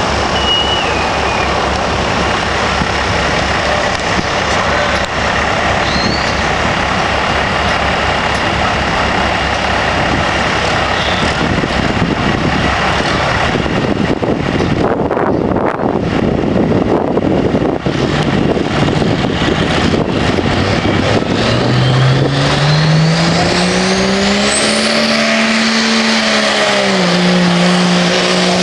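Loud mixed engine noise with a low, pulsing idle, then a diesel pull truck's engine revs up about three-quarters of the way through, its pitch climbing, dipping slightly and then holding at high revs under full load. A high whistle from the turbocharger rises in pitch as the engine comes up.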